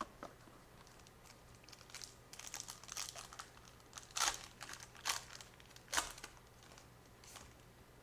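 Foil trading-card pack wrapper being torn open and crinkled, a run of irregular crackles with a few sharper tears about four, five and six seconds in.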